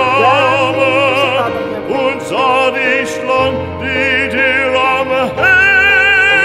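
Background music: long held notes with a wide, even vibrato, operatic singing in style, over a sustained low accompaniment.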